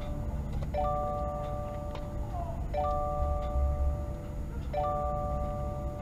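An electronic chime of a few steady tones sounding together, each held about a second and a half and repeating about every two seconds, over a low rumble.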